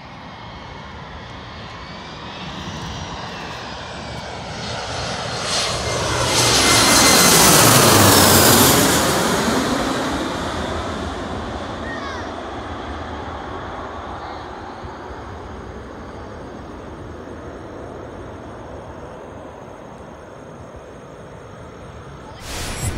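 Jet airliner passing low overhead: the engine noise swells to a peak about eight seconds in, sweeps down in pitch as it goes by, then slowly fades.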